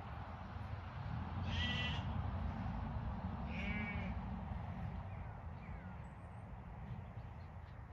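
Sheep bleating twice off-screen, two short quavering calls about two seconds apart, over a low steady rumble.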